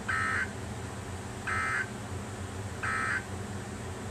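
Emergency Alert System end-of-message tones: three short, identical bursts of shrill digital data chirp, about a second and a half apart, signalling the end of the alert.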